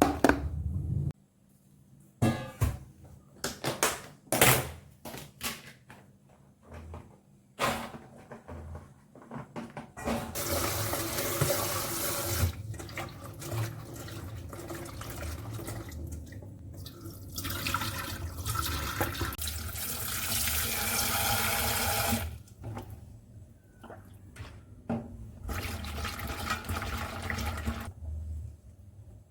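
Kitchen tap running into a sink in spells, water splashing. Knocks and clinks of dishes or utensils being handled come first, before the water starts about ten seconds in.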